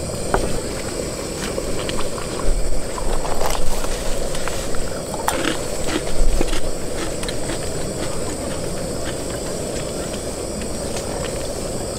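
A steady hiss, with a few light clicks and taps in the first half as plastic food containers and a bowl are handled.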